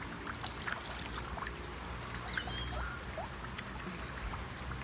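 Light rain pattering as many small irregular ticks over a low steady rumble, with a few short high squeaks scattered through it.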